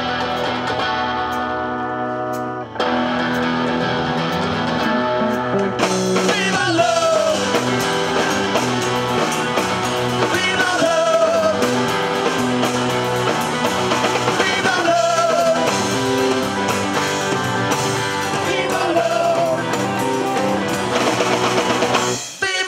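Live rock band playing the instrumental close of a song: electric guitars ring out held chords, then bass and drums come in about three seconds in with a steady beat. The band stops abruptly near the end.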